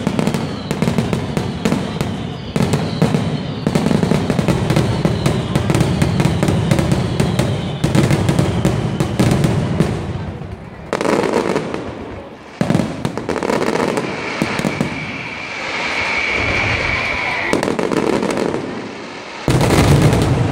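Fireworks display: a dense run of rapid bangs and crackling for about ten seconds, thinning to scattered bangs and crackle. A high whistle lasts a couple of seconds about three-quarters of the way in, and one loud bang comes near the end.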